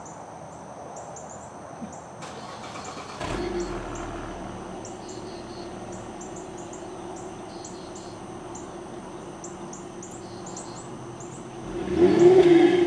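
2011 Chevy Traverse's 3.6-litre V6, heard through its stock dual-tip exhaust, starts about three seconds in and settles into a steady idle, then revs up and back down once near the end. Birds chirp in the background.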